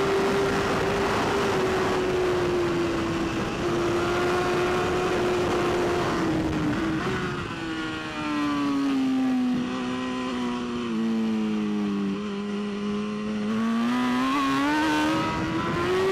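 BMW S1000RR superbike's inline-four engine running hard on track. Its note holds high for the first seven seconds, then falls steadily as the bike slows for about five seconds, and climbs again as it accelerates near the end.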